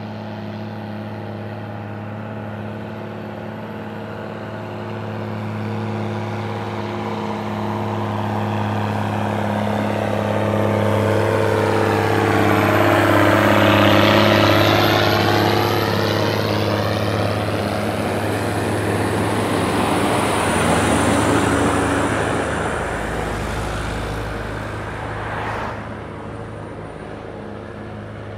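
Heavy diesel truck engine running under load as the truck climbs a grade and passes close by. The engine note swells to its loudest about halfway through, rises once more a few seconds later, then falls away near the end.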